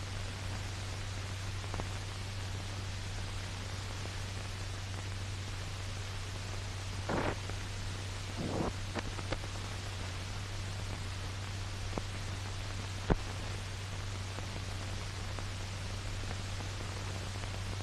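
Steady hiss and low hum of an old film soundtrack, with two short scratchy noises about seven and eight and a half seconds in and a few sharp clicks, the loudest near thirteen seconds.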